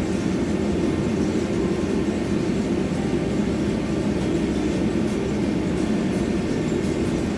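Steady low mechanical rumble, even and unbroken throughout.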